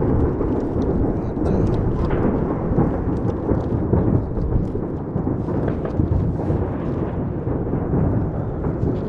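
Massed fireworks going off all around, their many bangs merging into a continuous thunder-like rumble, with faint crackles on top.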